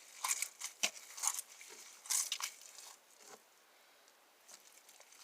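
Homemade slime being squeezed and pulled apart in the hands: a run of short, irregular wet squelches and snaps that die away about three seconds in.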